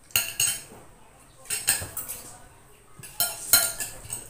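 Spoons clinking and scraping against plates during a meal, in three short clusters of sharp clinks about a second and a half apart.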